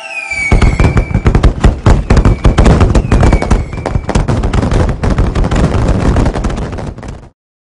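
Fireworks: a dense run of rapid bangs and crackling with a few falling whistles, cutting off abruptly near the end.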